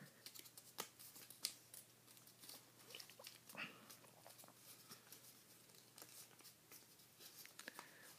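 Faint rustling and crinkling of a paper origami model being folded and creased by hand, with scattered soft clicks and scratches.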